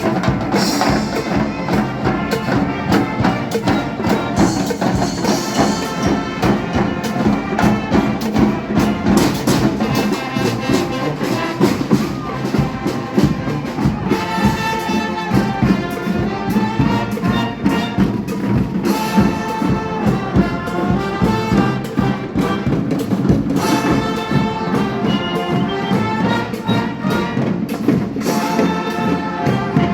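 Marching brass band playing: trumpets and trombones carry the tune over drums keeping a steady beat.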